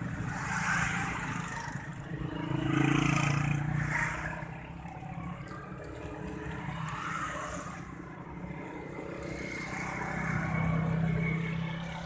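Road traffic: motor vehicles passing with a low engine hum that swells as one goes by about three seconds in, and again as another goes by near the end.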